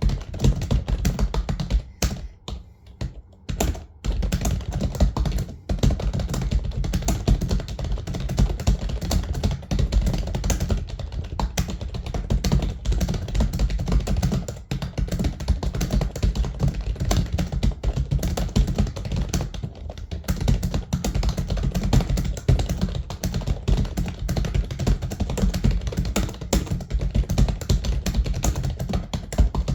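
Fast typing on a computer keyboard: a near-continuous stream of keystrokes at around 100 words a minute, with a brief pause a few seconds in.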